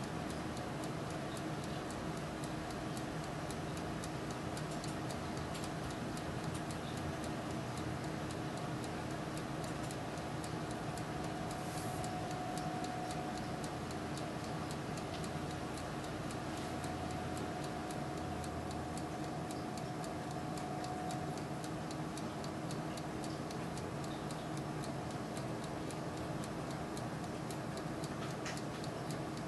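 Turbo convection oven running: a steady fan whir and hum with fine ticking throughout.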